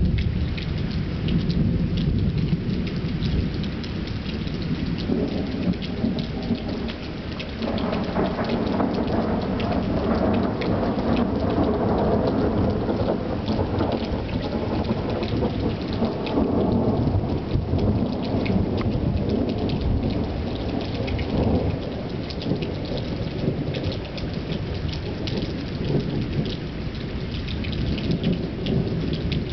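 Thunderstorm: steady rain with sharp drops ticking close by, and a long roll of thunder that swells about a quarter of the way in and dies away over a dozen seconds.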